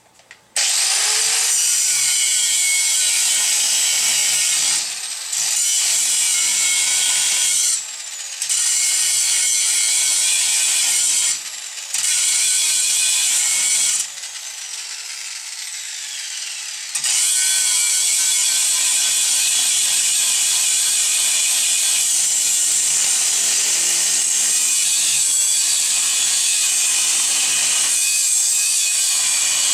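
Corded electric angle grinder spinning up about half a second in and grinding metal, throwing sparks. The grinding drops away briefly a few times as the disc comes off the work, with a longer, lighter stretch a little after the middle.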